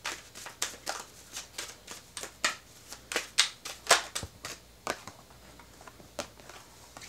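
A deck of tarot cards being shuffled by hand: a string of quick, irregular flicks and swishes of the cards sliding against each other.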